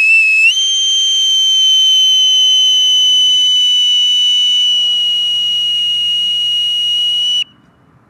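Boatswain's call (bosun's pipe) blown in one long, steady high-pitched note, its required "high pitch" sound. The pitch steps up slightly about half a second in, then holds for about seven seconds and cuts off sharply.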